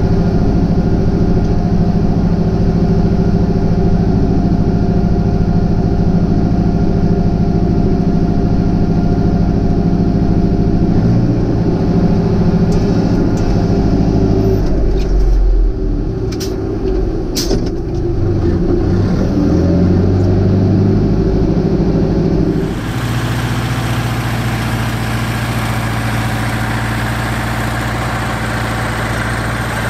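Fortschritt tractor's four-cylinder diesel engine running while plowing snow, heard inside the cab; its note dips and rises around the middle, with a few sharp clicks. About three quarters through it is heard from outside instead, a steady hum with an added hiss.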